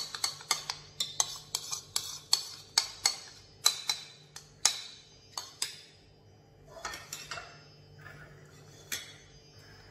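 Metal spoon clinking and scraping against a stainless steel mixing bowl and a butter dish as softened butter is scooped and knocked into the bowl. There are sharp clinks about twice a second for the first five seconds, then only a few softer knocks.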